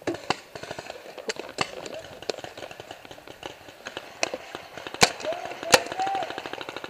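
Paintball markers firing across the field in scattered sharp pops. Two loud, close cracks come about five seconds in, less than a second apart, then a fast faint string of shots.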